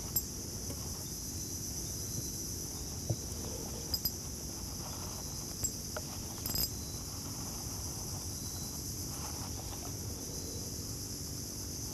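Steady high-pitched insect chorus, a continuous shrill buzz in two bands. A few short sharp clicks and taps come between about three and seven seconds in.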